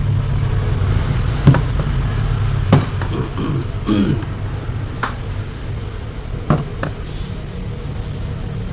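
Several sharp knocks and clicks of table-fan parts being handled while a worn motor bush is replaced, the loudest about one and a half seconds in, over a steady low hum.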